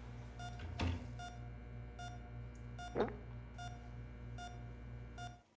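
Medical patient monitor beeping at a steady pace, about one short beep every 0.8 seconds, over a low electrical hum. Two brief falling swoops sound about a second in and about three seconds in. Everything cuts off abruptly just before the end.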